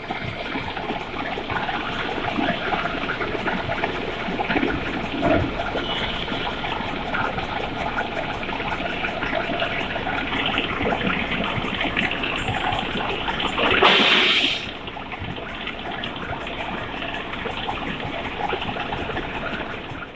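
Gantry milling machine face-milling steel impact crusher wear parts: a steady run of metal-cutting noise, with a louder burst lasting about a second a little past the middle.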